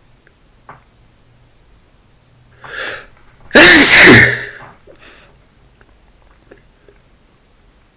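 A man sneezes once, very loudly, after a quick in-drawn breath about two and a half seconds in, and breathes out softly after. The sneeze comes from irritation by dust.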